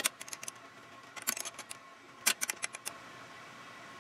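Hex key turning the front derailleur's cable clamp bolt, giving three short runs of small metal clicks as the cable is tightened down.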